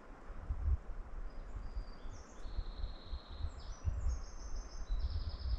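A songbird singing a string of short, high trills, each phrase on a different pitch, starting about a second and a half in. Under it, an uneven low rumble of wind on the microphone.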